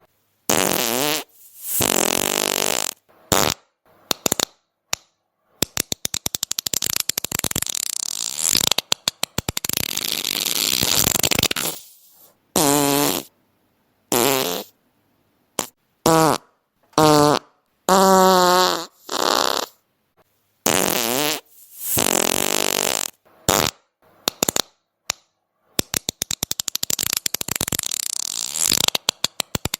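A string of fart sounds, one after another with short silences between. Some are long and sputtering, breaking into quick rattling pulses, while others, especially in the middle, are short and have a clear pitch that wavers.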